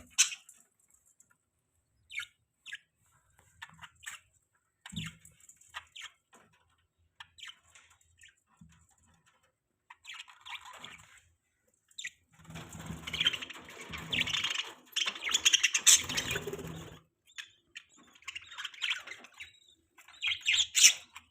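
Pet budgerigars chirping: scattered short chirps at first, then a dense stretch of chattering from a little past halfway, with more chirps near the end.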